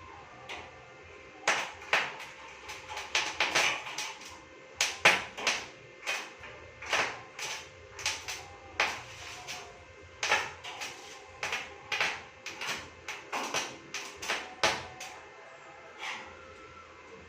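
A long, irregular series of sharp knocks and clacks, some in quick clusters, with no steady rhythm, stopping shortly before the end.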